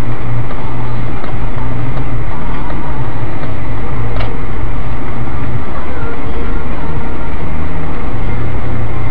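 Truck engine and road noise heard inside the cab through a dashcam microphone, loud and steady with a low rumble that rises and falls. A single sharp click about four seconds in.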